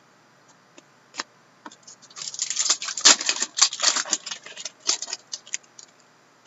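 Trading cards being handled and shuffled: a single click about a second in, then a few seconds of dense crinkling and clicking that thins out near the end.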